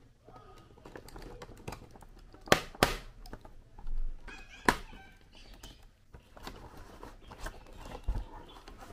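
Unboxing noise from a toy dinosaur figure's packaging: cardboard and plastic rustling while a box cutter cuts through the plastic ties. Sharp snaps and clicks come about two and a half seconds in, again just after, and near five seconds in.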